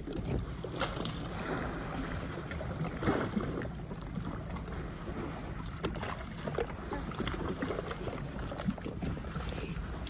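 Water lapping and sloshing against the hull of a small boat drifting on calm sea, with wind buffeting the microphone. There are brief splashes about a second in and again about three seconds in.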